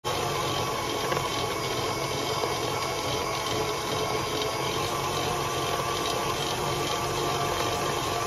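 KitchenAid stand mixer running steadily at speed, its wire whisk beating heavy cream at the thick whipped-cream stage, on the way to turning into butter.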